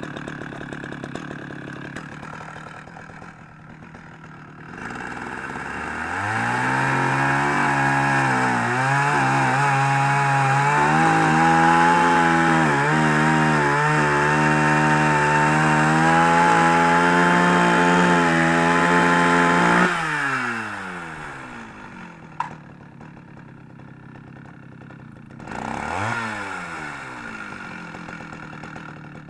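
Petrol chainsaw with a freshly sharpened chain, idling, then run up to full throttle for about fourteen seconds while sawing the end off a wooden pole, its pitch dipping and wavering under load. About twenty seconds in it winds back down to idle, with one brief rev a few seconds before the end.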